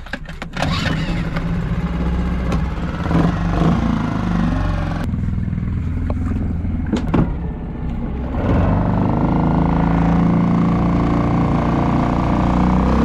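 Suzuki 2.5 hp outboard motor catching about half a second in after a few clicks, then running steadily. About 8 seconds in its note rises and grows louder as it is opened up and pushes the dinghy along. The engine is running again after its gearbox repair.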